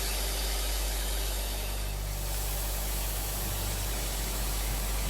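Pressure washer running: a steady low motor drone under the hiss of water spraying.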